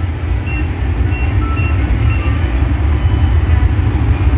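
Short electronic beeps from the touch control panel of a portable therapy device as its buttons are pressed, several in quick succession, over a steady low rumble.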